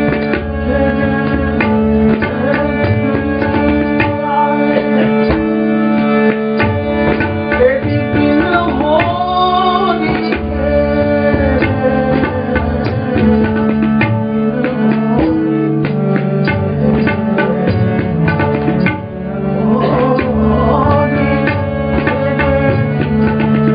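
Classical Kumaoni Holi song: tabla playing a steady rhythm under a held harmonium drone. A man's singing voice comes in with phrases about a third of the way through and again near the end.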